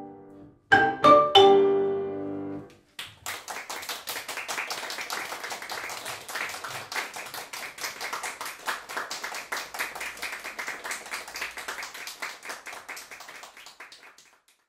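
Marimba and grand piano strike two loud final chords together, about half a second apart, which ring out. About two seconds later an audience applauds steadily, dying away near the end.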